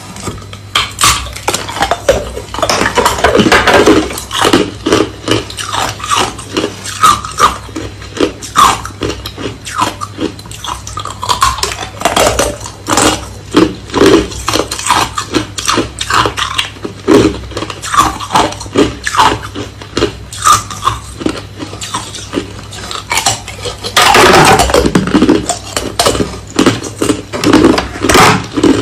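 Hard, clear crushed ice being bitten and chewed: a dense, uneven run of crisp crunches and clinks, with a longer stretch of loud crunching about 24 seconds in.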